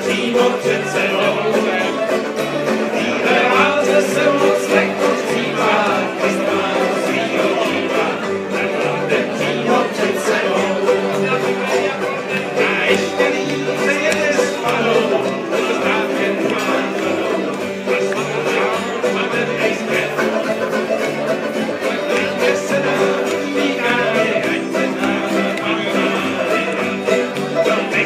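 Live bluegrass on a banjo, picked in quick rolls, with strummed acoustic guitar backing and steady low bass notes on the beat.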